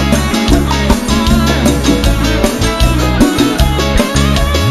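Cumbia band playing live: an electric guitar lead with wavering, bending notes over bass and a drum kit.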